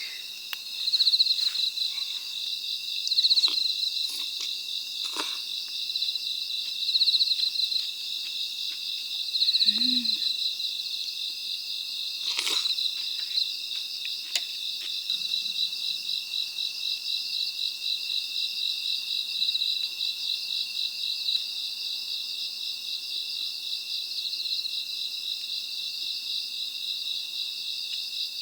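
Night chorus of crickets, a steady, finely pulsing trill, with a few scattered light clicks and knocks, the sharpest about twelve seconds in.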